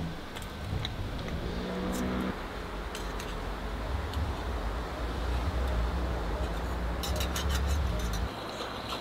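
A low, steady rumble like a motor vehicle's engine running nearby, with a hum that stops suddenly about eight seconds in. A few light clicks come just before the hum stops.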